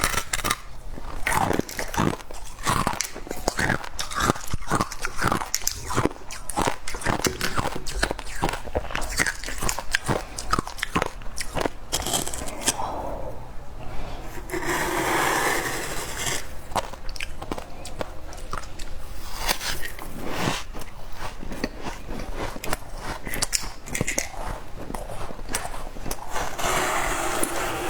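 Freezer frost being bitten and chewed close to the microphone: a dense run of crisp crunches and crackles, with a couple of longer hissy grinding stretches.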